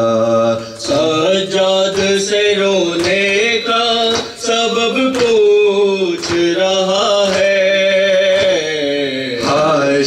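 A man chanting a noha (Shia mourning lament) unaccompanied through a microphone, drawing out long wavering notes, with regular chest-beating slaps (matam) keeping time.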